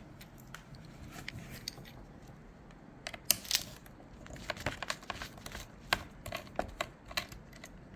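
Small screwdriver clicking and scraping on the tiny screws and metal mounting brackets of a laptop's LCD panel as the screws are backed out, with scattered light ticks and taps that come more often after about four seconds.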